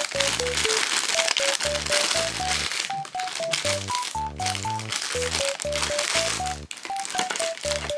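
Background music: a simple plinking melody of short notes stepping up and down over a regular bass line, with a rustling, crinkly haze above it.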